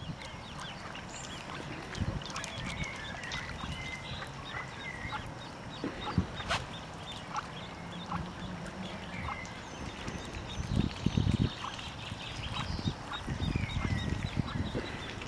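Mallard ducklings peeping: many short high peeps with a few sliding chirps among them. Dull low thumps come a little past the middle and again near the end.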